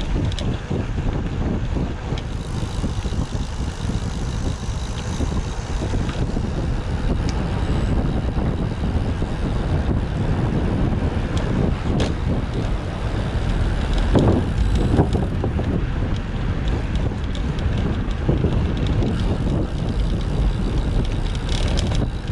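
Wind rushing over a GoPro's microphone on a moving road bike, mixed with road and tyre noise, steady throughout, with a louder swell about two-thirds of the way in.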